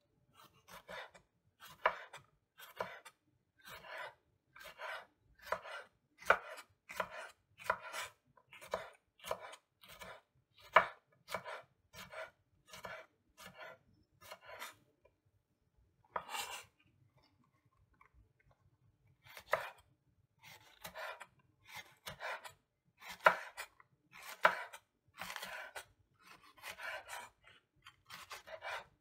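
Chef's knife slicing chili peppers into rings on a wooden cutting board, each cut ending in a sharp knock of the blade on the board, about two cuts a second. The cutting pauses for a few seconds around the middle, then resumes on a green pepper.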